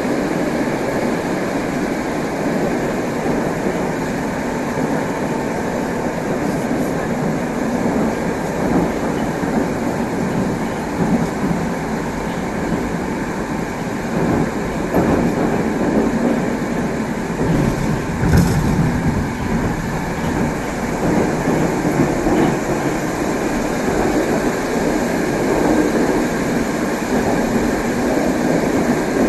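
Moscow metro 81-765 'Moskva' train running at speed, heard from inside the car: steady running noise of wheels on rail, with a single knock about eighteen seconds in.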